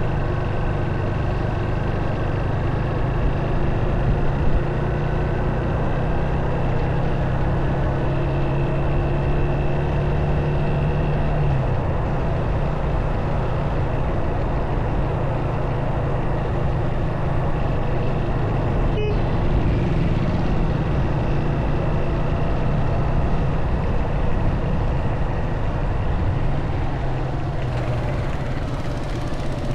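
Motorcycle engine running on the move under steady road and wind noise. The low engine note shifts about a third of the way in, and there is one short click about two-thirds through.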